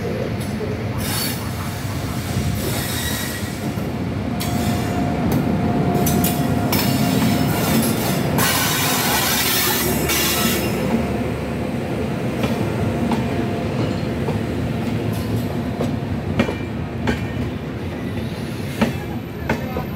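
WAP-7 electric locomotive and its passenger coaches rolling past close by. A rumble swells as the locomotive draws level, with a thin steady squeal from the wheels, then peaks in a loud rush of noise about halfway through. The coaches follow with a steady rumble of wheels on rails and a few sharp clacks over the rail joints near the end.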